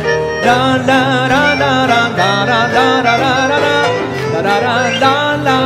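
Male vocalist singing a sustained melody with vibrato over live piano accompaniment.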